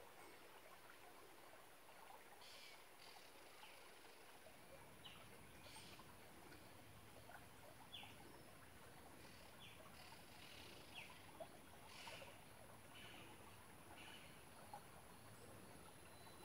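Near silence: faint outdoor ambience with an even hiss and a few short, high chirps scattered through it.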